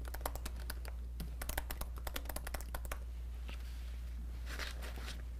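Computer keyboard typing: a quick run of keystrokes for about three seconds, then a few scattered clicks. A steady low hum runs beneath.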